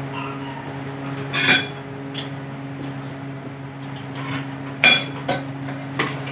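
Scattered clinks of cooked mussel shells and a spoon against ceramic plates and a bowl during a meal, loudest in a short cluster about a second and a half in and again a few times near the end. A steady electric-fan hum runs underneath.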